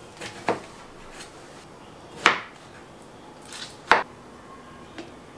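Kitchen knife cutting muskmelon on a wooden chopping board: four sharp knocks of the blade on the board, the loudest a little over two seconds in, with a few lighter taps between.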